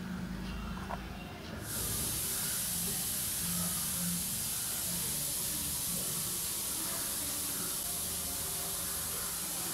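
A loud, even, high-pitched hiss sets in suddenly about two seconds in and holds steady.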